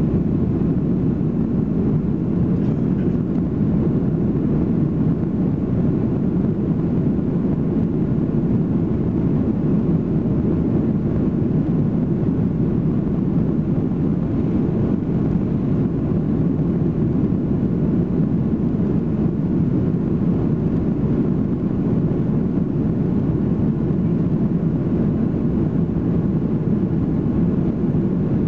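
Steady low rumble inside the cabin of an Airbus A330-343 moving on the ground, its Rolls-Royce Trent 700 engines running with the airframe and cabin air noise, even in level and not rising.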